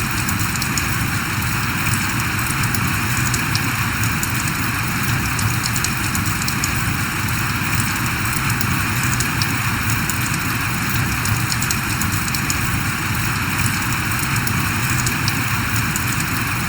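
Steady rain falling, a continuous hiss with many small drop ticks on top.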